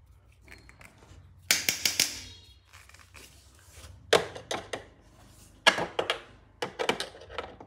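Sharp clicks and knocks in four short bursts, from hands working at the wooden case of an old pendulum wall clock while trying to open it and free the movement.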